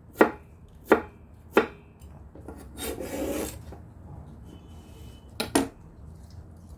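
A small dog crunching raw vegetable pieces: three crisp bites about 0.7 s apart, a brief rustling chew around the middle, then two quick crunches near the end.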